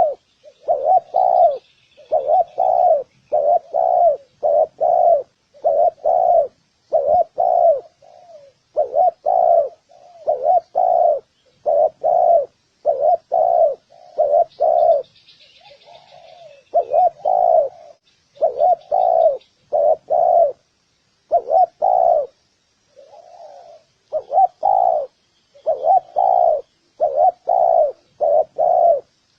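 Spotted dove cooing over and over, low coos coming in quick runs of two or three with short pauses between the runs. Faint chirps of small birds sound behind it.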